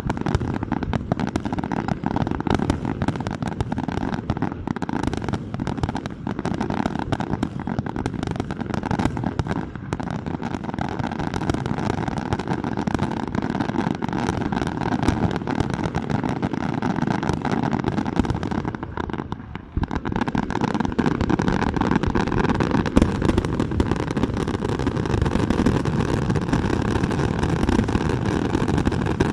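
Dense fireworks barrage: a continuous rumble of bursts thick with crackle. About two-thirds of the way through it dips briefly, then goes on as a steadier rumble with less crackle.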